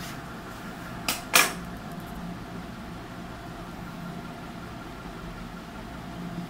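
Two quick, sharp handling sounds about a second in, the second louder, as pieces of fabric are laid and shifted on the sewing machine's bed. A steady low machine hum runs underneath.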